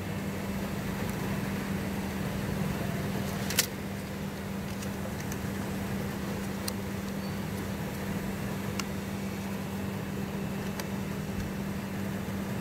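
Plastic lids clicking onto cups of slush: one sharp click about three and a half seconds in, then a few lighter clicks, over a steady low hum and constant background noise.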